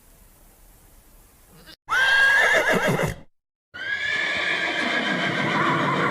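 Horse whinnying twice: a call of about a second starting around two seconds in, then after a brief gap a longer whinny with a quavering pitch.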